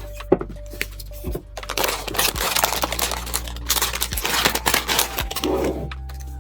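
Hands handling PC parts during assembly: a run of small clicks and taps, then about four seconds of dense plastic rustling and crinkling, over quiet background music.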